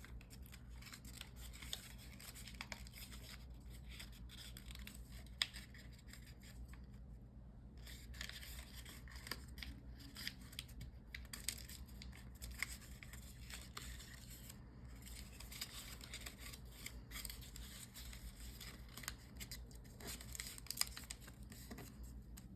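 Origami paper being folded and creased by hand, with faint rustling and crinkling and scattered small ticks.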